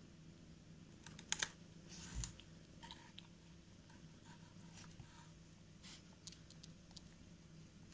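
Cats lapping milk from a bowl: faint, irregular clicking of tongues in the milk, with a couple of louder clicks about a second and a half in and a soft low bump just after.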